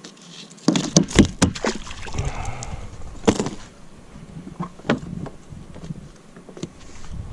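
Handling knocks and clatter in an inflatable boat: a quick cluster of sharp knocks about a second in, then single knocks a little after three seconds and near five seconds, over a low steady rumble.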